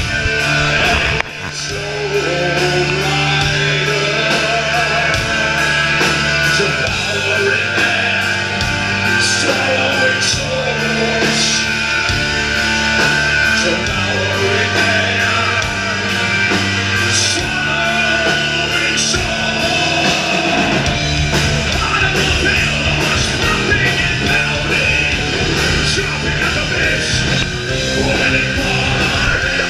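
Rock band playing live and loud: electric guitar, bass and drums, with a singer yelling into a microphone. The sound briefly drops about a second in, then the band plays on.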